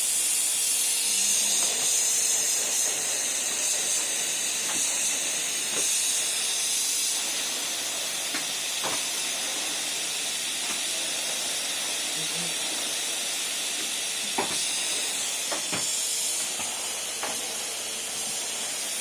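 Numatic Henry tub vacuum cleaner running: a steady airy hiss from the suction, a little louder in the first several seconds, with a few light knocks of the floor tool.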